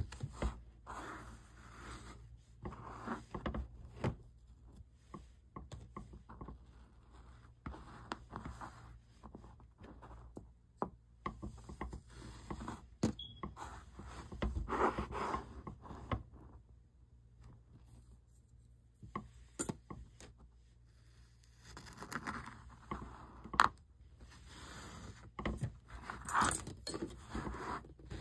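Green kinetic sand being pressed, scraped and crumbled by hand in short irregular bursts of soft crackling, mixed with light clicks of steel shape cutters. The sounds thin out a little past the middle and grow busier near the end, with one sharp click there.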